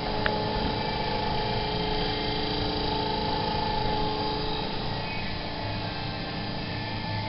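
Old MotorGuide Hog electric trolling motor running out of the water, its propeller spinning freely in the air with a steady, smooth electric whine. A single short click about a third of a second in.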